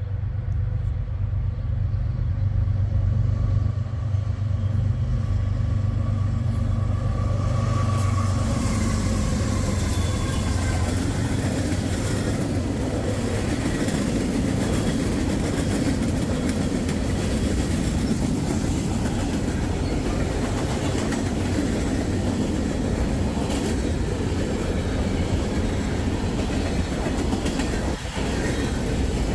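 A Norfolk Southern diesel freight train passing close by. For about the first eight seconds a low, steady locomotive engine drone dominates. It then gives way to the loud, steady noise of the freight cars' wheels rolling over the rails, with faint clicks.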